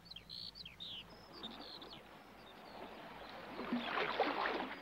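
Birdsong ambience: a run of short, quick falling chirps, then a soft noise that grows louder toward the end.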